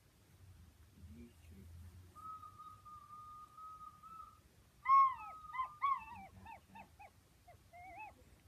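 Recorder played with a clean tone: one steady held note of about two seconds, then after a brief pause a run of short notes, several sagging in pitch as each ends. This is the recorder's proper 'good sound', not the shrill bad one.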